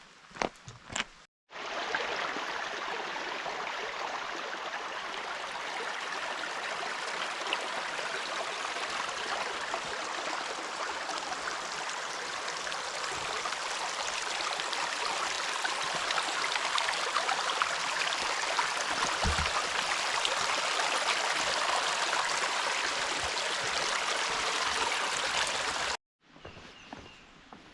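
Steady rush of creek water running over rocks in small cascades. It cuts in about two seconds in and cuts off abruptly near the end.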